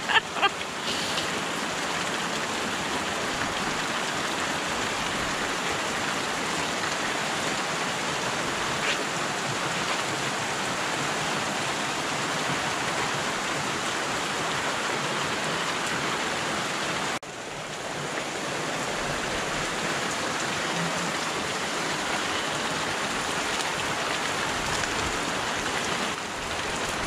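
Steady, heavy rain falling, an even wash of water noise. It drops off suddenly about 17 seconds in and then picks up again.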